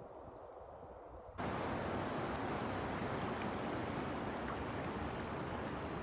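Rushing river water, a steady even hiss. A quieter, muffled stretch gives way abruptly to the full, louder rush about a second and a half in.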